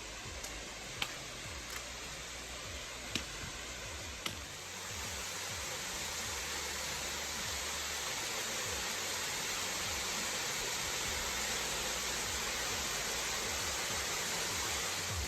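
Steady rush of falling water that grows louder about five seconds in, with a few sharp clicks in the first four seconds.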